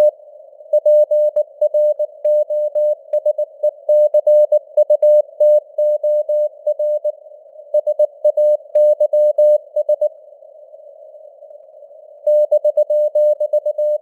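Morse code (CW) sent at 19 words per minute: a single mid-pitched tone keyed in quick dots and dashes over simulated radio hiss. The keying stops for about two seconds shortly before the end, leaving only the hiss, then resumes.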